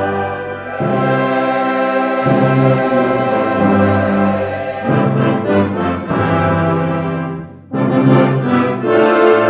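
Brass band playing a slow anthem in full, held chords, with a short break about three-quarters of the way through before the chord comes back loud.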